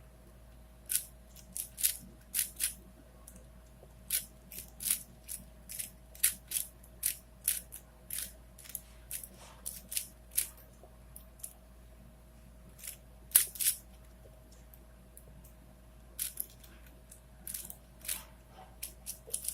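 Plastic 4x4x4 Rubik's cube (Rubik's Revenge) being turned by hand: quick, sharp clicks of its layers snapping round, coming in irregular bursts with a couple of short pauses.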